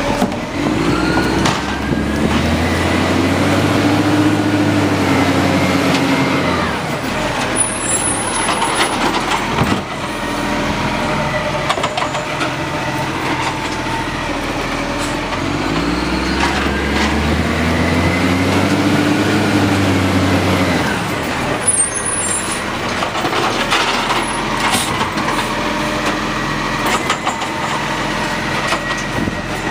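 Side-loader garbage truck running, its engine revving up twice for about six seconds each time to drive the hydraulic lifting arm as it raises and tips a wheelie bin, then dropping back to idle. Knocks and short hisses come as each bin is emptied.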